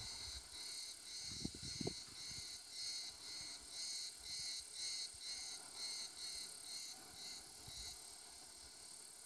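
Faint insect chirping outdoors: short high pulses repeated evenly about three times a second, stopping shortly before the end. Two soft low bumps sound about a second and a half in.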